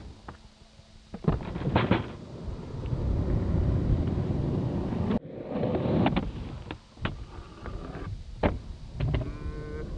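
Skateboard wheels rolling over asphalt and wooden ramps as a steady rumble, with several sharp clacks and slaps of the board hitting and landing. A short high-pitched sound comes near the end.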